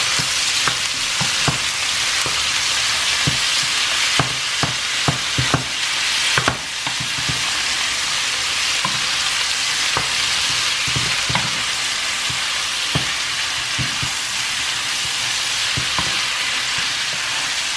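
Marinated beef cubes sizzling hard in beef tallow in a frying pan over high heat, a steady hiss. A wooden spoon stirs them, with irregular taps and scrapes against the pan, most frequent in the first several seconds.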